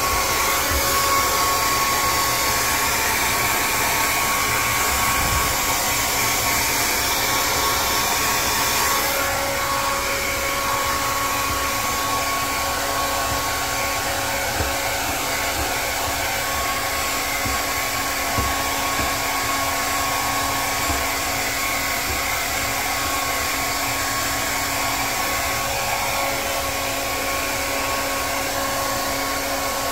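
Hand-held blow dryer running steadily: a rush of air over a constant motor whine. The high hiss of the airflow softens about nine seconds in.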